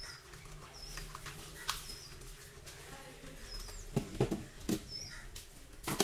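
Electrical wires and plastic breaker parts being handled at a distribution board, giving scattered clicks and rustles, the loudest about four seconds in and near the end. A small bird chirps briefly in the background about every second and a half.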